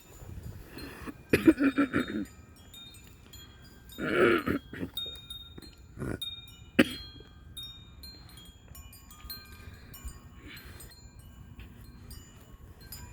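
Several wind chimes ringing irregularly as gusts swing them, their tones overlapping. A person coughs loudly about 1.5 seconds in and again about 4 seconds in.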